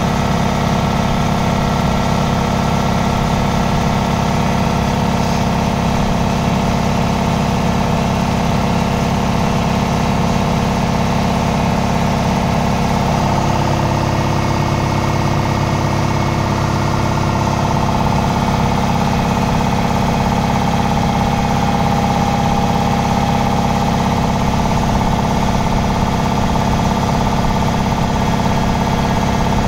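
Belt-driven Harbor Freight 3 hp air compressor pump, turned by a 2 hp electric motor, running steadily as it builds tank pressure toward its 145 psi cut-out.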